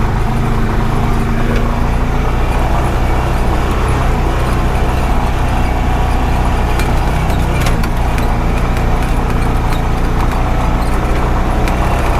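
Honda Pioneer 520 side-by-side's single-cylinder engine running steadily under way, with scattered knocks and rattles as it drives over a rough dirt road.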